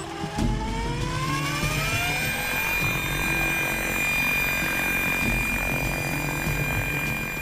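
Electric radio-controlled model helicopter spooling up: the motor and rotor whine rises in pitch over the first two seconds or so, then holds as a steady high whine as it lifts off and hovers.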